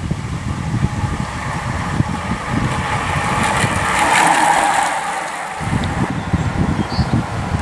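Time-trial bicycle passing close at racing speed: a whoosh of tyres and wheels that swells to a peak about four seconds in and then fades, over wind buffeting the microphone.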